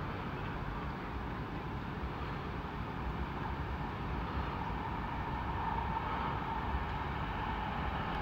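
Approaching Class 720 electric multiple unit: a faint whine that grows louder through the second half, over a steady low noise.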